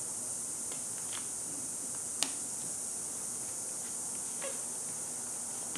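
Steady high hiss under faint handling sounds of packing tape being smoothed onto a foam wing, with one sharp click about two seconds in.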